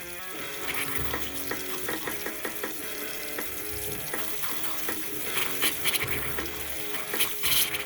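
A faucet sputtering and spitting as trapped air is purged from the water pipes after refilling a drained water heater, an irregular hissing spatter that grows heavier in the second half. Background music plays underneath.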